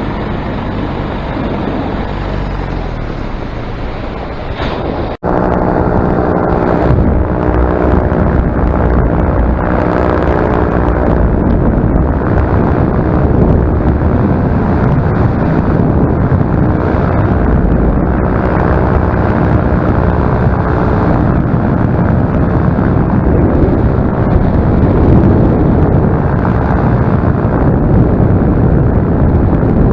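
Paramotor engine and propeller running under power in flight, with wind buffeting the microphone. The propeller's protective tape has come loose at the tips, which the pilot says made it sound bad. The sound breaks off for an instant about five seconds in and comes back louder.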